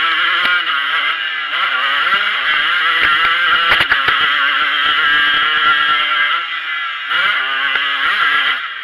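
Motocross bike engine heard from on the bike at race pace, its pitch rising and falling as the rider works the throttle and gears, with a sharp knock about four seconds in. The engine note sags briefly around six seconds, picks up again, and drops off as the throttle closes at the very end.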